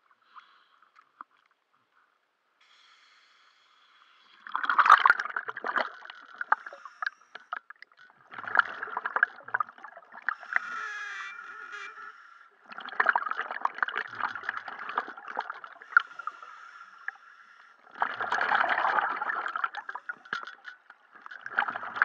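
Underwater scuba breathing through a regulator: gurgling bursts of exhaled bubbles, each about two seconds long, coming every four to five seconds and starting about four seconds in, with softer sound between breaths.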